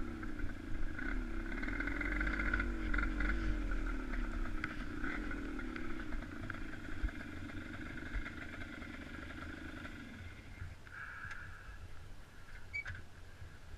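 A vehicle engine running, its pitch rising and falling as it revs. It fades away about ten seconds in.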